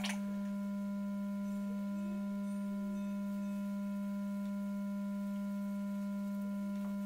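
A steady hum: one low, unchanging tone with fainter higher tones above it.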